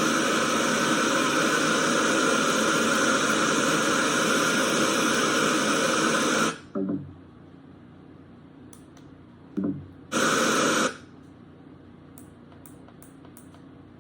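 FM radio static from a Bluetooth alarm clock's speaker, tuned between stations: loud hiss that cuts off after about six and a half seconds. Two short blips follow, then a second brief burst of hiss around ten seconds in, as the tuning moves on.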